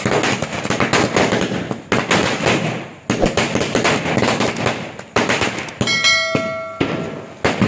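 A string of firecrackers going off in a rapid, continuous crackle of bangs, with two brief lulls. A short bell-like chime rings about six seconds in.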